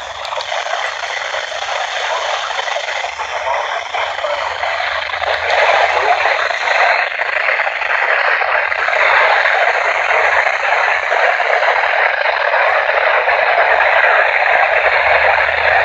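Steady hiss of static from a weather-band radio receiver tuned to a distant, weak NOAA Weather Radio channel, growing a little louder about five seconds in.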